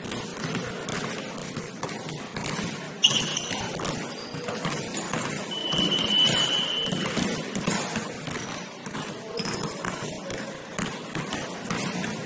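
Basketball game in a gym: a ball bouncing on the court with repeated short knocks over a hall's background noise, and a steady high tone held for about a second near the middle.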